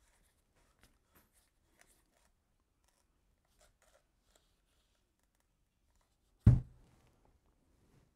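Faint handling clicks as a compressed-air bottle is fitted to a Dye DSR paintball marker, then one short, loud burst about six and a half seconds in, with a brief tail.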